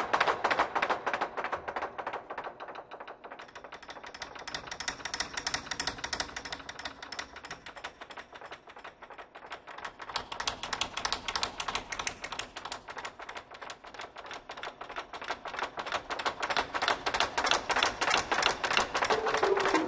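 Chinese drums played with wooden sticks in a fast, light tapping roll, with no deep strokes. The roll fades softer, swells again about halfway, dips, and builds once more near the end.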